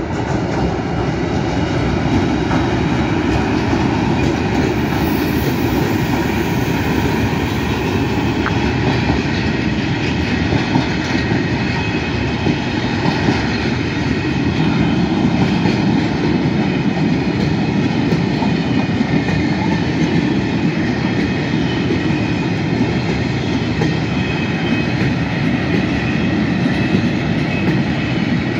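Freight train headed by two Siemens Vectron electric locomotives passing close by, then its long string of wagons rolling past with a steady noise of wheels on the rails.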